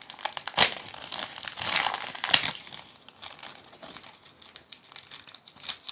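Crinkly packaging of a pack of polishing pads being handled, rustling and crackling irregularly, louder in the first couple of seconds and fainter after.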